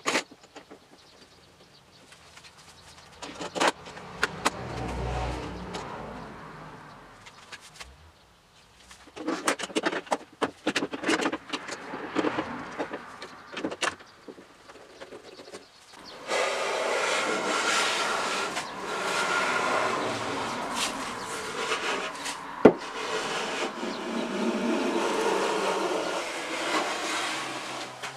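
Metal bar clamps clicking and knocking in scattered bursts as they are fitted and tightened on a finger-jointed pine box. About halfway through, a handheld power tool starts abruptly and runs steadily on the wood, with one sharp knock partway through its run.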